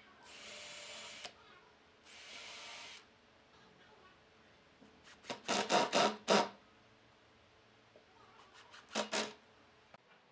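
Makita cordless drill driver whirring in two short runs of about a second each, driving screws into the wood. Then a cordless impact driver rattles in short bursts around the middle and again briefly near the end as it drives screws home.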